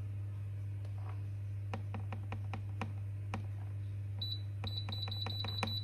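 Air fryer's touch control panel beeping as its buttons are pressed to raise the cooking temperature: a few soft tapping clicks, then one short high beep and a quick run of about nine more in the second half. A low steady hum runs underneath.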